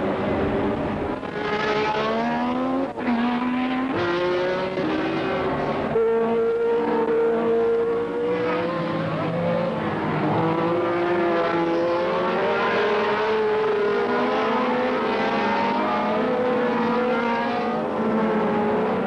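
Several 1970s Formula One racing cars at high revs, their engine notes rising and falling and overlapping as they race past. The sound changes abruptly about three and six seconds in, like edits between shots.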